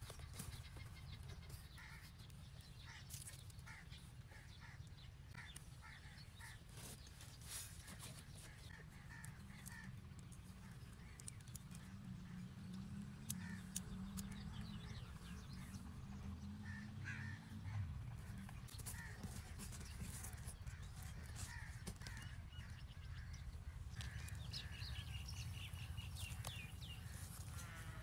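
Faint outdoor ambience: birds calling now and then over a low steady rumble, with scattered light taps and rustles of cardboard being handled.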